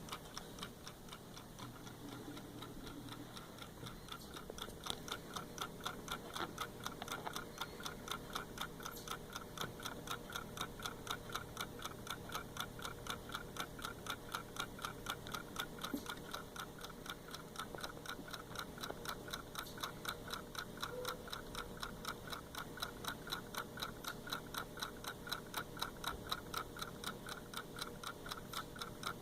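Hand-wound mechanical clock movement ticking, its escapement giving a rapid, even tick several times a second.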